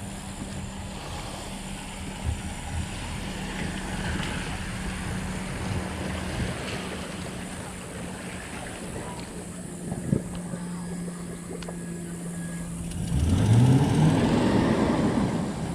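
Boat motor running steadily with a constant hum. About 13 seconds in, a tone rises quickly in pitch and the sound gets louder for a couple of seconds.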